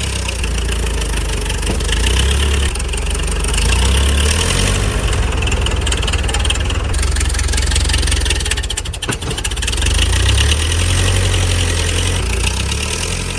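Tractor engine running steadily at low revs, its level swelling and easing a few times.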